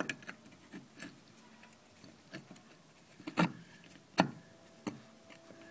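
Bronze sign plaque and its threaded metal pegs clicking and tapping against a stone wall while being test-fitted into drilled holes. About eight scattered sharp clicks and knocks, the loudest a little past three and four seconds in.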